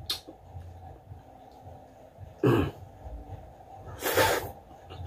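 Close-up eating noises from a balut egg: a light click at the start, a short throaty sound about halfway, then a loud half-second slurp from the egg held at the mouth, about four seconds in.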